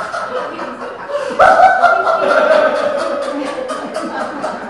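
Several people laughing hard together. About a second and a half in, a louder, higher laugh joins and is held, slowly falling in pitch.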